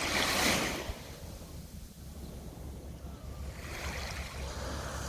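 Small, gentle sea waves washing onto the shore, one swell of surf just at the start and another building near the end, over a low rumble of wind on the microphone.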